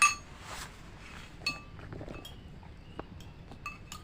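Tableware clinking: a few sharp clinks with a brief ringing tone, the loudest right at the start and others about one and a half, two and three and a half seconds in.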